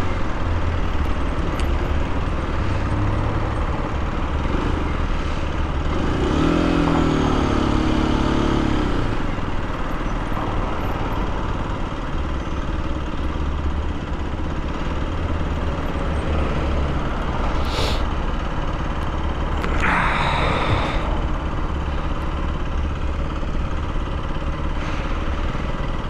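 Aprilia RS 125 single-cylinder four-stroke motorcycle engine running steadily at low speed, heard from the rider's seat, its pitch rising briefly about seven seconds in.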